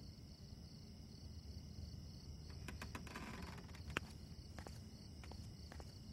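Faint low-level background after the music has ended: a steady, evenly pulsing high-pitched tone over a low rumble, with a few scattered soft clicks and one sharper click about four seconds in.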